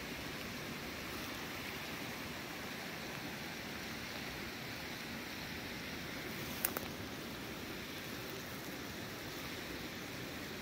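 Steady rushing of a nearby stream, an even wash of flowing water. A single sharp click sounds about two-thirds of the way through.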